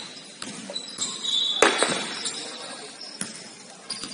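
Ball bouncing and shoes squeaking on an indoor court during play: several sharp knocks, the loudest about a second and a half in, with short high squeaks.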